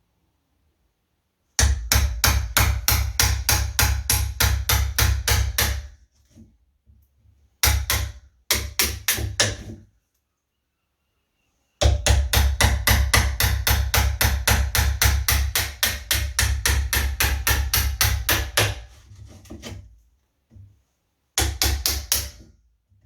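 Hammer rapidly tapping a wood chisel, about six strikes a second in four runs separated by short pauses, cutting out the latch recess in the edge of a door.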